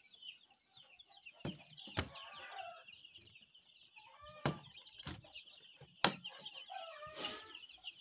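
A crowd of young ducklings and chicks peeping nonstop in a high chatter, with an occasional lower cluck-like call from an older bird. A few sharp knocks cut through, the loudest about six seconds in.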